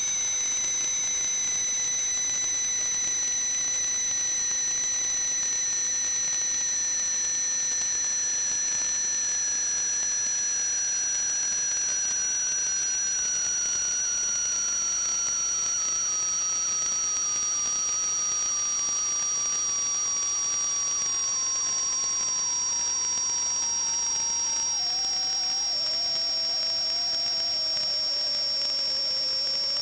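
Steady hiss with several thin whistling tones over it: a high one held steady, and a lower one that slides slowly and evenly down in pitch, with a small step down about three-quarters of the way through.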